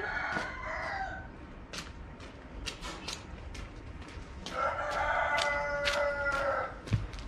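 A rooster crowing: one long call right at the start and a louder, drawn-out crow about halfway through, with scattered light clicks and taps between them.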